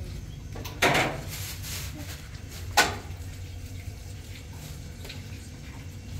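Two short, sharp clatters about two seconds apart over a steady low room hum, from handling food and metal trays.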